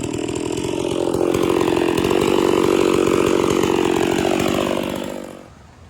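Two-stroke chainsaw cutting through a hard, dead pecan log, its engine pitch sagging and recovering under load. The sound drops away sharply near the end.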